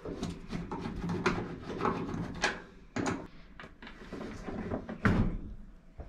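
Hand-work on the plastic top deck of a Fisher & Paykel SmartDrive washing machine as its retaining screws are taken out: rubbing and scraping broken by several sharp clicks and knocks, the loudest about five seconds in.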